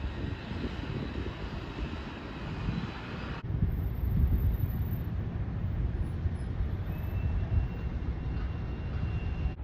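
A steady, low outdoor rumble, such as a city's distant traffic or an aircraft, mixed with wind on the microphone. The sound changes abruptly at a cut about three and a half seconds in.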